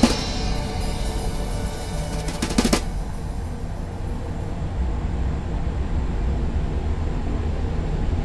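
Background music with drums, with sharp hits at the start and again near the three-second mark over a steady low bass.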